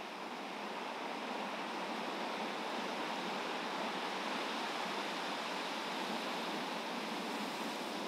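Ocean waves breaking and washing ashore: a steady rush of surf that grows a little louder about a second in.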